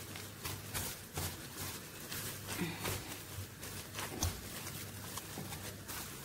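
Gloved hands kneading and squeezing sticky meatball dough of minced beef and flour in a stainless steel bowl: irregular wet squishes and pats, over a low steady hum.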